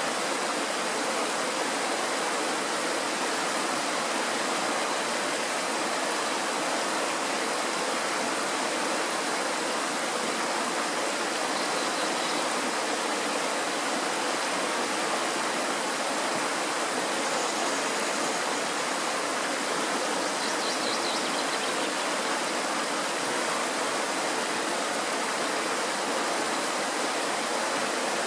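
Mountain stream rushing over rocks in a small cascade: a steady, unbroken rush of water.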